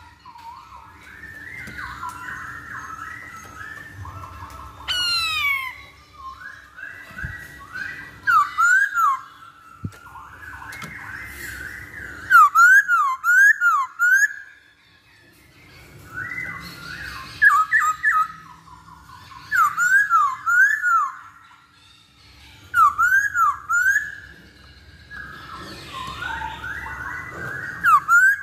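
Black-throated laughingthrush (poksay hongkong) singing: bouts of loud, varied whistled phrases with quick up-and-down glides, broken by short pauses, with thin high chattering notes above them.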